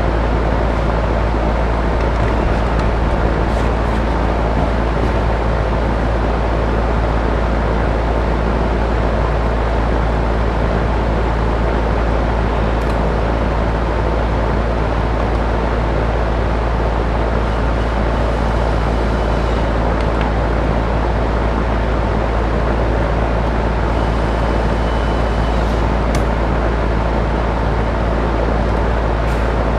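Loud, steady rumbling noise with a low hum, unchanging throughout, with a few faint clicks.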